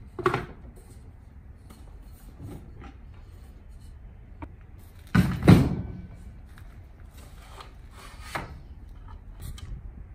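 An aluminium straight-edge saw guide being slid and set against a wooden butcher-block countertop: scattered rubs and knocks, the loudest a thump and scrape about five seconds in.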